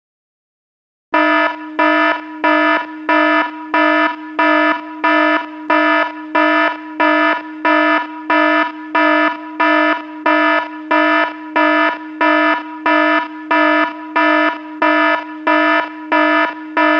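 Avast antivirus virus-detected alert alarm: a buzzing electronic tone beeping evenly about twice a second, starting about a second in.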